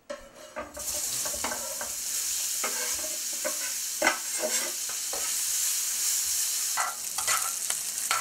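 Thinly sliced onions dropped into a hot skillet of butter, breaking into a sizzle about a second in, with the repeated scrape and knock of a spatula stirring them around the pan.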